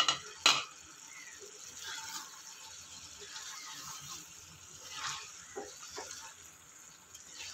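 Wooden spatula stirring thick chicken-and-potato curry in a steel kadai: soft scraping stirring sounds with a few small knocks. It opens with two sharp knocks about half a second apart.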